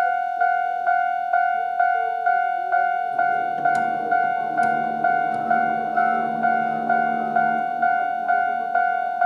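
Japanese railway crossing alarm ringing its standard electronic bell tone, a little over two strikes a second. From about three seconds in to about eight seconds a train rumbles across the crossing under it, with a low hum and a few sharp clicks of wheels over the rail joints.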